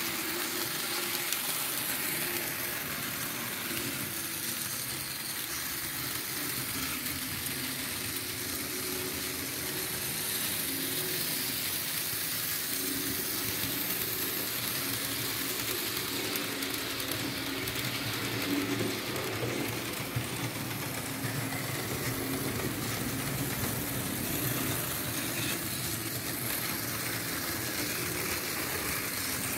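Märklin H0 model V 200 diesel locomotive running on the track with its passenger coaches: the steady whir of the model's electric motor and the rolling of its wheels on the rails.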